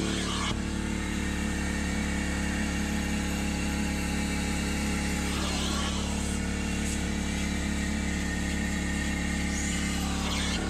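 Hot water upholstery extractor's vacuum motor running steadily as its clear upholstery tool is drawn across a cloth car seat, sucking up the rinse water, with a few soft swishes as the tool passes.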